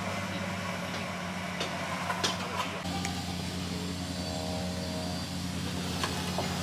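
A motor running with a steady low hum, its pitch shifting slightly about three seconds in, with a few sharp knocks about two seconds in.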